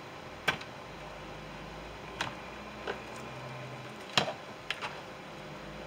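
Plastic clicks and snaps as clips let go while the power-window switch panel is pried out of a Ford F150 door trim panel, about five sharp clicks, the loudest about half a second in and about four seconds in.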